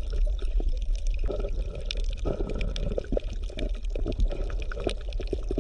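Bubbling, gurgling water with many small pops over a steady low rumble, the sound of an underwater scene.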